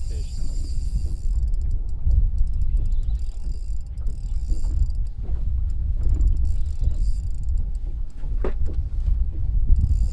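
Spinning reel being cranked while a catfish is fought on a bent rod: faint irregular clicking of the reel's gears, with a short squeak about eight and a half seconds in. Over it runs a steady low rumble.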